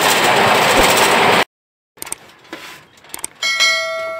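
Cable-car cabin rattling loudly as it runs along its cable, cut off abruptly about a second and a half in. After a couple of faint clicks, a bright bell-like ding rings out and fades slowly: a subscribe-button sound effect.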